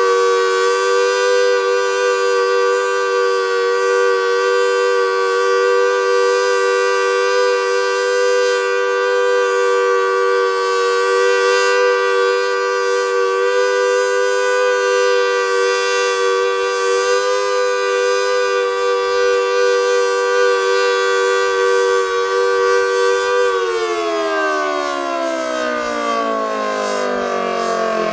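Federal Signal Model 2T tornado siren sounding its steady full-alert two-tone chord. About 23 seconds in it cuts off and winds down, the chord falling steadily in pitch. The siren is an ageing unit said to be starting to show its age.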